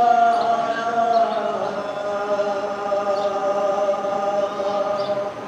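A man's voice chanting an unaccompanied mourning recitation in long held notes, the pitch stepping down a little over a second in and then held steady.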